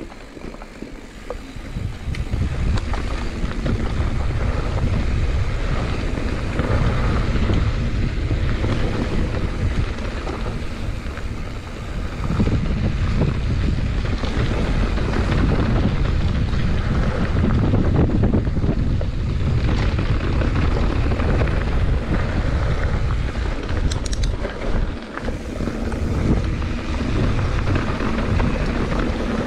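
Wind rushing over the microphone of a camera on a mountain bike descending fast, mixed with the tyres running over dry dirt and the bike rattling. It builds over the first couple of seconds as the bike picks up speed, then holds steady.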